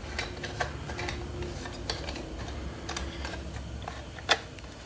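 Irregular light clicks and taps of small metal parts and hand tools being handled while slip-on exhaust mufflers are bolted on, with one sharper click near the end.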